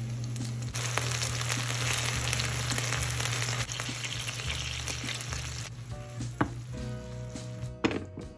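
Cod fillets frying in butter and soy sauce in a hot nonstick pan, with a loud sizzle. The sizzle grows suddenly louder about a second in and dies down after about five seconds. A few knocks follow near the end as the fish is slid out of the pan with chopsticks.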